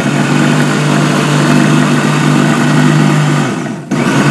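A Sahara 750-watt mixer grinder's motor running at full speed, grinding ginger and onion with water to a paste in its stainless steel jar. Near the end it winds down briefly, then starts up again abruptly.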